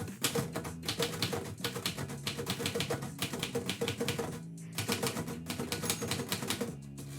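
Typewriter keys striking in rapid runs, pausing briefly about four and a half seconds in, over quiet background music.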